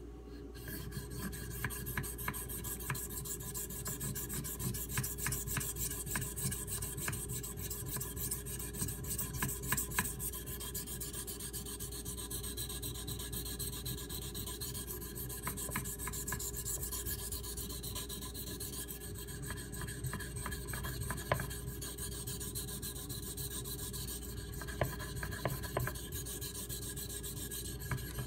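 CPM 3V steel knife blade being stroked repeatedly across a wet Shapton Pro water stone, a continuous scraping rasp made of many quick strokes.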